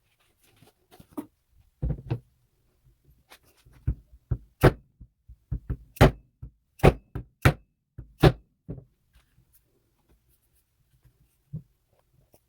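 Sharp knocks and taps, about a dozen at irregular spacing over some seven seconds, then a pause and one last knock near the end.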